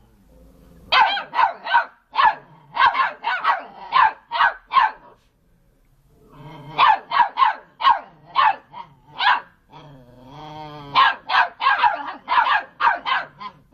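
A dog barking repeatedly in runs of short, sharp barks, about two a second, with a short pause about five seconds in. Just before eleven seconds there is one longer, wavering call.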